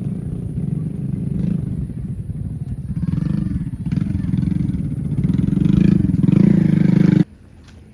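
Cow mooing loudly in long, low calls whose pitch bends up and down, cutting off abruptly near the end.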